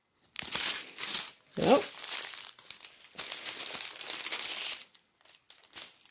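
Plastic bags and wrapping of a diamond painting kit being handled, crinkling in several bursts, with a short rising squeak about a second and a half in.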